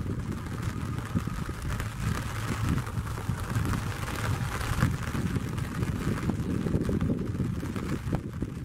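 ATR twin-turboprop airliner on its takeoff roll at full power on a wet runway, heard from behind as a steady low rumble of engines and propellers mixed with a hiss of rain and runway spray.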